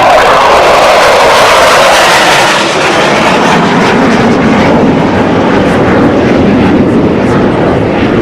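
Military jet passing low, a loud engine roar that is highest in pitch in the first few seconds and then sinks to a lower, steady rumble.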